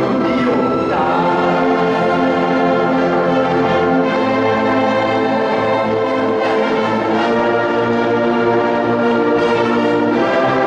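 Choir and orchestra performing classical music, holding sustained chords that change every few seconds.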